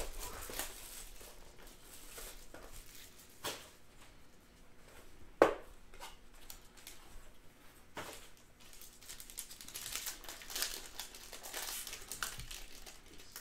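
Hands opening a cardboard trading-card box, with one sharp snap about five and a half seconds in, the loudest sound. A clear plastic card pack is then handled and torn open with crinkling near the end.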